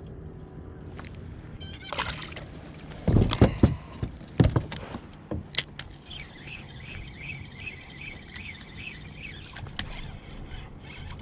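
Spinning reel being cranked by hand, a rhythmic whirr repeating about two to three times a second, about one per turn of the handle, as line is reeled in. A few loud knocks come first, before the reeling starts.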